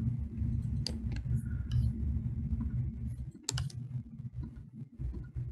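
A few sharp clicks from a computer mouse and keyboard over a steady low hum: one about a second in, another near two seconds, and a quick cluster about three and a half seconds in.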